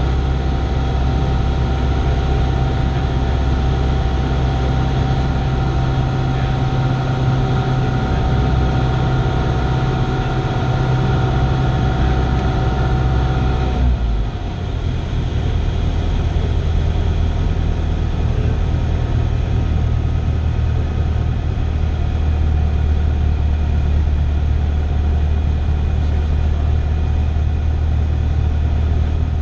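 Cessna 172's piston engine and propeller droning steadily, heard inside the cabin in flight. About halfway through the tone changes abruptly: a short dip in loudness, then the drone carries on without its higher whining tones.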